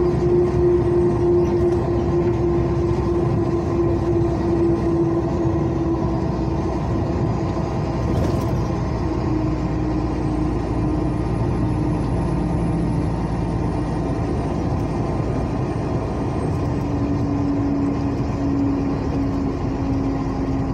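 Truck engine and tyre noise on wet asphalt heard from inside the cab while driving: a steady drone whose engine note slowly drops in pitch over the span.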